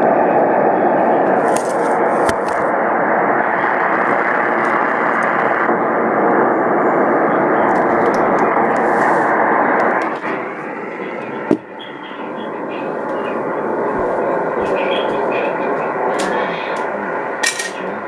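Steady hiss and static from a portable radio's speaker on the AM band. The static thins a little about ten seconds in, and a single sharp knock comes shortly after.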